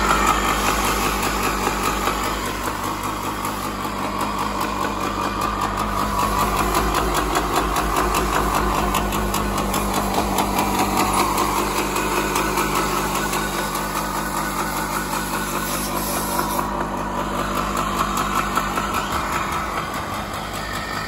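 Yamaha Tri-Z 250's two-stroke single-cylinder engine idling steadily.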